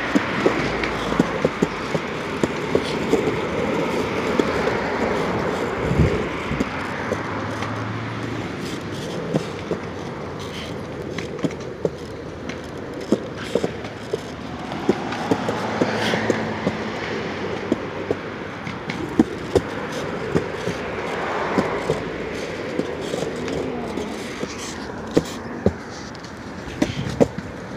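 Street traffic passing on a road alongside, the rumble swelling a few times as vehicles go by, mixed with a child's kick scooter rolling over sidewalk concrete. Scattered short taps and clicks run through it.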